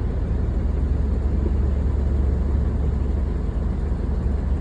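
Steady low rumble of a car driving, engine and road noise running evenly.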